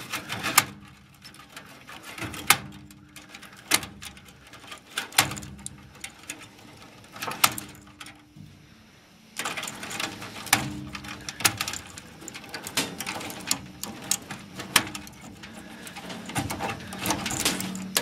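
Wire connectors being pulled off a furnace control board: irregular sharp clicks, about one every second or two, over the rustle of the wire bundles being handled.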